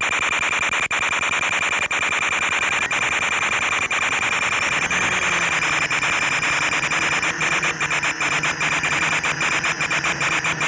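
Quadcopter audio heavy with steady hiss and high whistling tones; about halfway through, a low wavering hum from the motors comes in and holds.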